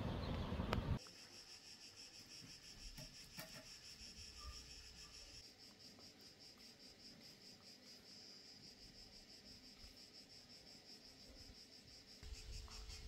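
Wind rushing on the microphone for about the first second, cut off abruptly, then crickets chirping in a fast, even high trill.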